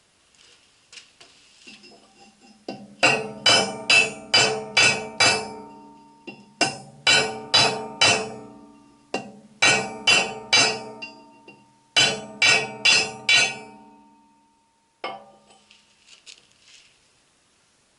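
Hammer striking a ringing steel piece in four quick runs of about five blows, each blow leaving a clear metallic ring, with one last single blow near the end.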